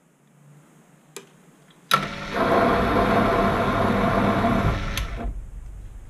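Proxxon PD 250/e mini lathe taking a single-point threading pass on a steel bar: a click about a second in, then the lathe starts suddenly about two seconds in and runs loudly for about three seconds. Another click comes near the end, and the sound dies away.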